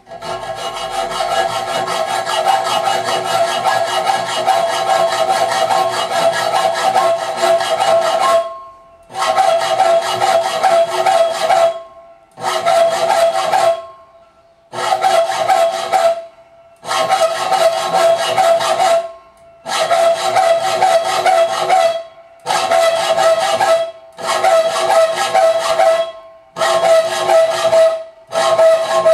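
Hand hacksaw cutting a metal piece clamped in a bench vise: the blade rasps back and forth with a steady ringing note under the scrape. One unbroken run for about eight seconds, then short runs of sawing with brief pauses between them.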